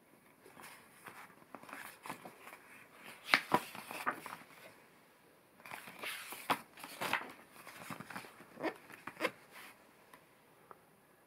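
Paper pages of a large picture book being handled and turned over: rustling and crinkling in two bouts, with a few sharp crackles.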